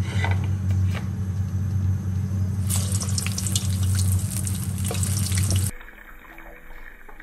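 Hot cooking oil in a frying pan sizzling and crackling as a piece of food goes in, about three seconds in, over a steady low hum. A little under six seconds in, the sound cuts to soft background music.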